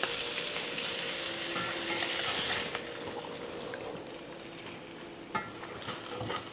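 Seasoned lake trout fillets sizzling in hot oil in an enamelled cast-iron skillet as a slotted spatula lifts them out. The sizzle fades after about three seconds, and a few light knocks follow near the end.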